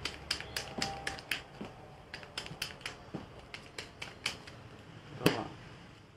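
Domino playing cards being handled and laid down: a run of sharp, irregular clicks, about two or three a second, the loudest a little after five seconds in.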